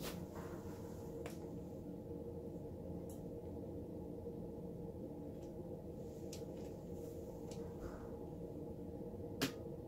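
Steady low hum with a few faint clicks and knocks from a toy car being gripped and moved on a metal turntable, and one sharper click near the end.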